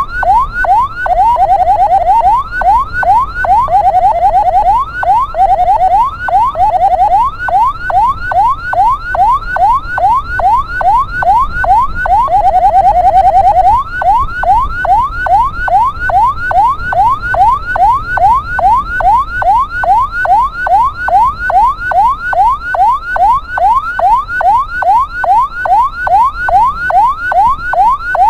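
Ambulance electronic siren on yelp: quick rising wails, about three a second. In the first half it switches several times to a faster, lower rapid warble, then settles back to the steady yelp.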